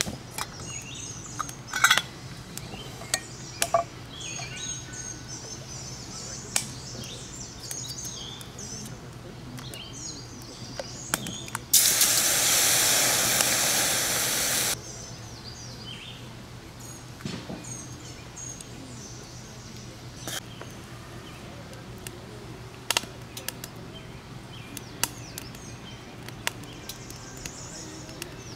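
Small birds chirping and calling, with scattered clinks and knocks of camp cookware being handled. About twelve seconds in, a loud, even rush of noise lasts about three seconds and cuts off abruptly.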